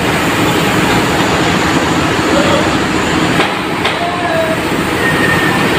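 Coach bus's diesel engine running steadily close by, back in running order after repair work in the engine bay. Two short knocks come about three and a half seconds in.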